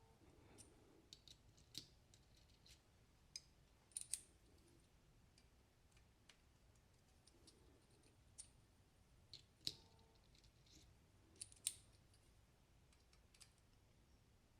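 Faint, irregular small clicks and taps from handling a freshly reassembled Kizer Mercury folding knife as its blade is checked for play and centering. The clicks come a few seconds apart, and one about ten seconds in rings briefly.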